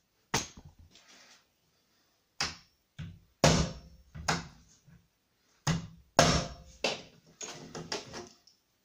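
A claw hammer knocking a door catch into a hole bored in the edge of a wooden door: a string of sharp, uneven knocks, some in quick pairs, with a quicker run of lighter taps near the end.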